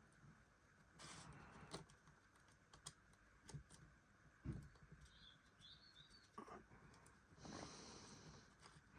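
Near silence with a scattered handful of faint small clicks and taps from tiny model locomotive parts being handled and fitted by hand.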